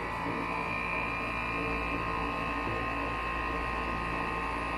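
Home central air conditioner's outdoor condenser unit running, a steady electric hum with several pitches layered together, as it is tested after its fan motor and capacitor were replaced.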